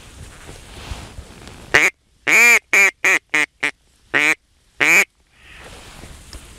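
Mouth-blown duck call sounded in a loud series of mallard hen quacks: one short quack, a long drawn quack, four shorter ones coming faster, then two more spaced out.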